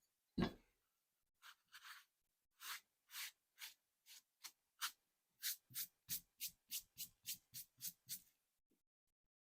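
Gasket surface of a small-engine part being rubbed back and forth on 180-grit sandpaper wetted with WD-40 on a granite slab, a scratchy sanding sound. The first strokes are irregular; after about five seconds they settle into a steady rhythm of about three strokes a second. The part is being lapped flat for its new gasket.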